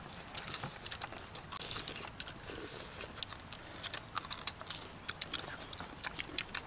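Several people eating fried chicken with their hands: irregular small clicks and smacks of chewing, biting and lips, some of them sharp.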